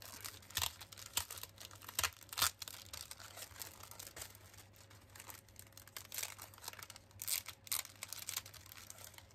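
Plastic craft packaging being handled and unwrapped by hand, crinkling and rustling in irregular crackles with a few louder crinkles.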